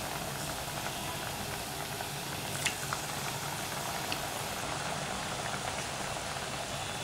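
Badusha dough balls deep-frying in hot oil in a steel kadai on a low flame: a steady sizzling bubble with a few faint pops.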